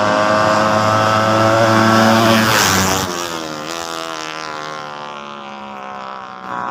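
Drag-racing motorcycle engines at full throttle, loud and high-pitched, peaking about two and a half seconds in as they pass. After a sudden drop, a quieter engine note dips and then climbs again.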